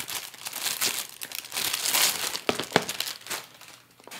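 Packaging crinkling and rustling as a small bead storage box is unwrapped, with two sharp clicks about two and a half seconds in. The rustling dies down near the end.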